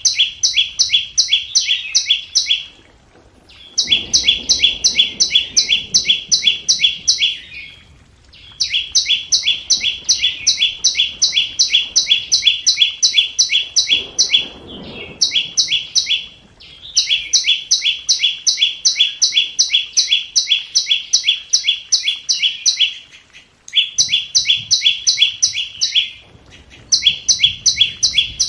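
Flowerpecker (chim sâu) calling: rapid series of sharp, high chip notes, about six a second, in bursts of a few seconds with short breaks between. This is a lure call used to draw wild birds to a trap.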